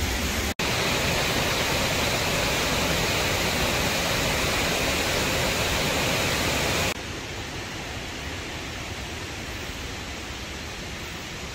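Waterfall rushing as a steady, even hiss. About seven seconds in it cuts off abruptly to a quieter, duller rush.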